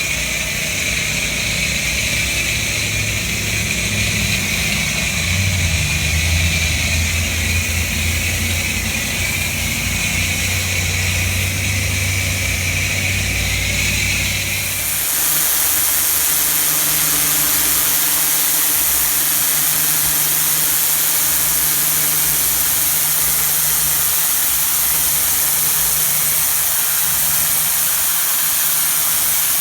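Pressure washer's engine running steadily under the hiss of the high-pressure water jet on concrete. About halfway through, the sound changes abruptly to a louder, hissier spray over a steadier hum.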